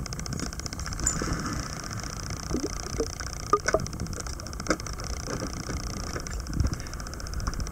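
Steady low rumble of a small dive boat in choppy sea, with a few short knocks and splashes about halfway through as scuba divers roll backwards off the side into the water.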